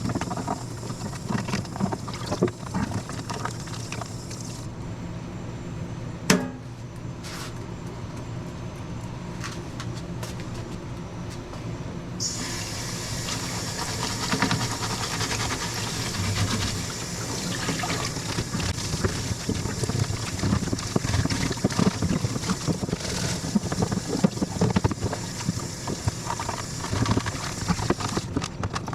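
Water running and splashing, brighter and fuller from about twelve seconds in, with a single sharp knock about six seconds in.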